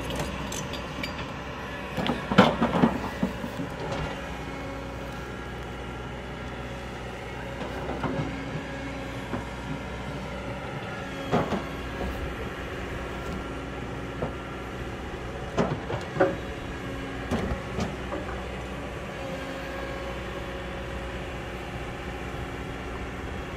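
Kobelco excavator's diesel engine running steadily as it digs the hillside, with a clatter of rock knocks about two seconds in and single sharp knocks of stone later on.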